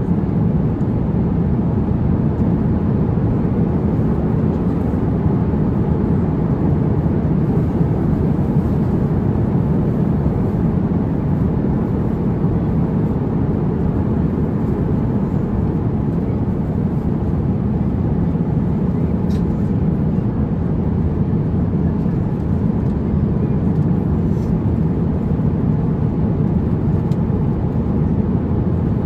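Steady cabin noise inside an Airbus A350-900 airliner: an even, low rumble of engines and airflow with no change in level. Two faint clicks come about two-thirds of the way through.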